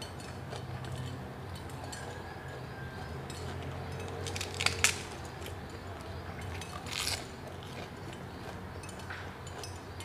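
Mouth-close crunching and chewing of raw vegetables such as cabbage leaf, with a quick cluster of sharp clicks about halfway through and a louder crunch around seven seconds, over a steady low hum.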